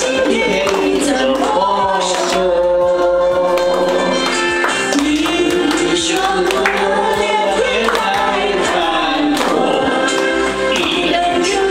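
Music with a group of voices singing, carried on throughout.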